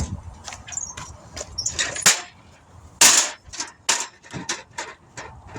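A string of irregular knocks and clatters from gear being handled and moved, with one loud crash about three seconds in.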